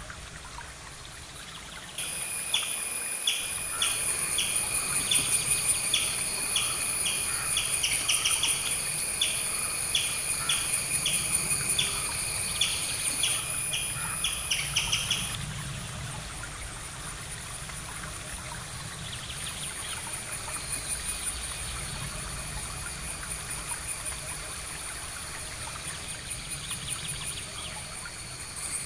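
Outdoor nature ambience. A bird repeats a short call about twice a second for the first half, then stops; a steady high-pitched insect trill runs underneath throughout.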